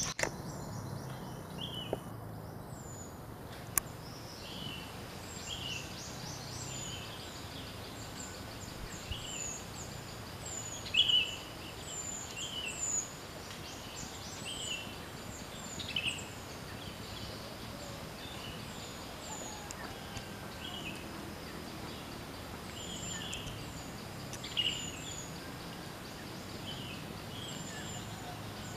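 Forest birds chirping: short, high notes repeating about once a second, some louder than others, with a single sharp click about four seconds in.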